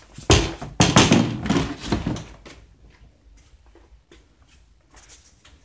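The plastic rear bumper cover of a 2003 Toyota Sienna being slid off and handled, making a loud plastic scraping and clatter for about two seconds. A few faint knocks follow.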